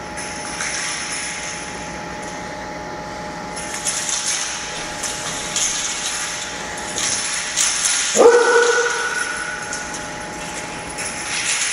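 Metal rings on the head of a shakujo (Buddhist ringed staff) jangling in repeated bursts as the staff is swung through a kata. About eight seconds in comes a loud shout (kiai) that rises sharply in pitch and is held for about a second.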